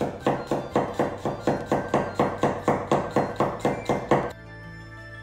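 Cleaver mincing garlic on a bamboo cutting board: rapid, even chops against the wood, about four a second, stopping about four seconds in.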